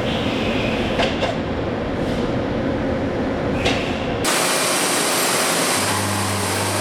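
CNC milling machine cutting a round spiral die: a steady, loud machining noise with a few sharp ticks. About four seconds in it changes abruptly to a brighter hiss, and a low hum joins near the end.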